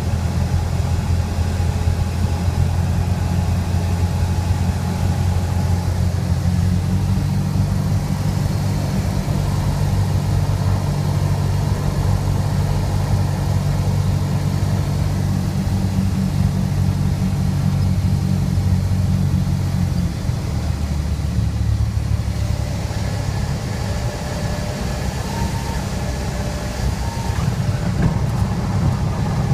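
Cessna 150's four-cylinder Continental O-200 engine and propeller running at low power, heard from inside the cabin as a steady drone. About two-thirds of the way through, the engine note shifts lower.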